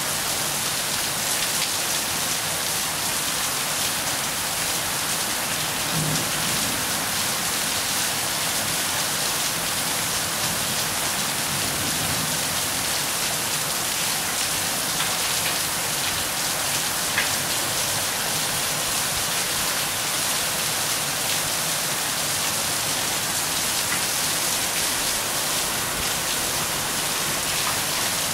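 Steady rain falling: a dense, even hiss of drops, with an occasional sharper tick of a single drop.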